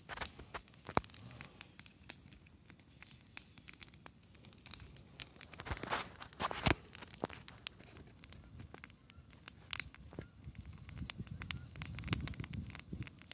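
Campfire crackling: irregular sharp pops and clicks.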